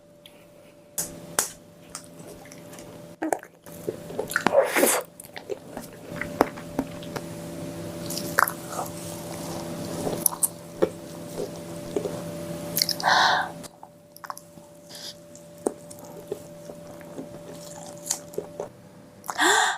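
Close-miked chewing and eating mouth sounds: many sharp wet clicks, with several louder noisy bursts, over a low steady hum.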